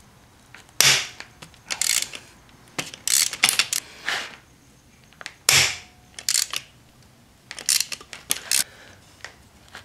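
Ratchet wrench on an extension loosening the bolts that hold the two halves of a Subaru EJ25 engine block together: two loud sharp cracks, about a second in and again near the middle, as bolts break loose, with short bursts of ratchet clicking between them.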